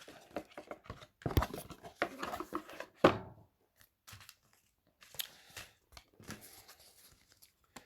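Paper and cardboard packaging being handled: irregular rustling and crinkling of leaflets and paperwork, with a few sharper clicks and knocks.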